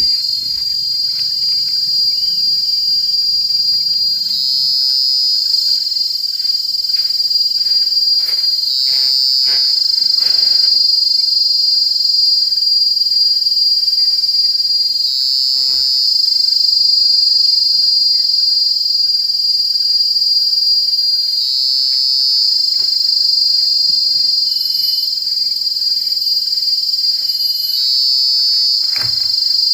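A steady, high-pitched insect chorus, swelling about every six seconds, with scattered faint taps.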